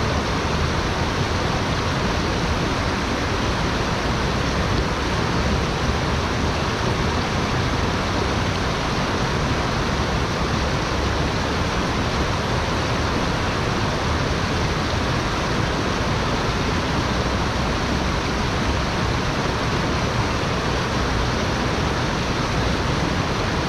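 Fast-flowing shallow stream rushing over rocks: a steady, even hiss of running white water.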